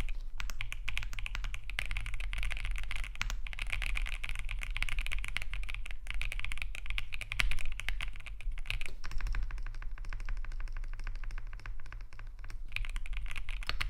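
Typing on a Cidoo V65 65% mechanical keyboard with linear switches, PBT keycaps and a gasket-mounted aluminium case: a fast, continuous run of keystrokes, softer for a few seconds after the middle before picking up again.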